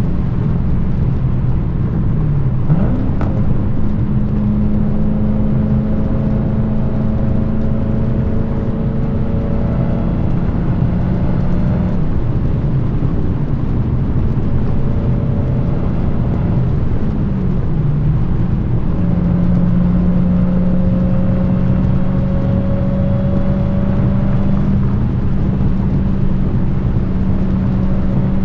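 Dodge Challenger SRT Hellcat's supercharged 6.2-litre Hemi V8 running through an exhaust with its active exhaust deleted, heard on the move. The engine note climbs slowly twice as it pulls, and its pitch briefly dips and recovers about three seconds in and again around seventeen seconds in.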